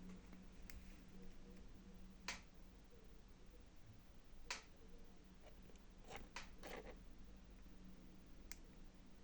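Scattered sharp clicks and taps, about seven of them at uneven intervals, several close together past the middle, over a faint steady low hum.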